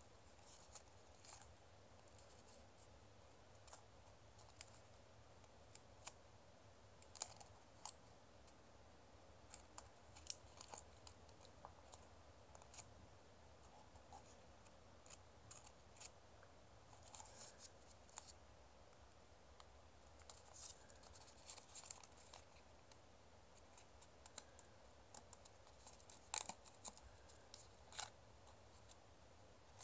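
Faint crackles and clicks of origami paper being folded and creased by hand, coming irregularly over a low room hiss, with a couple of sharper clicks near the end.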